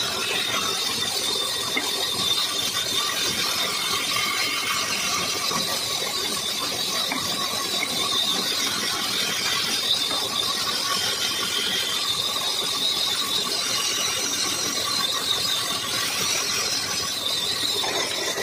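Band saw running and cutting through a wooden board, a steady high-pitched whine of the blade over the noise of the cut.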